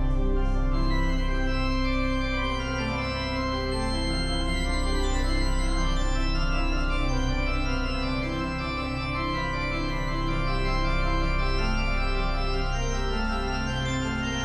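Church pipe organ playing slow music in long held chords over a sustained low bass note, the upper notes changing every second or so.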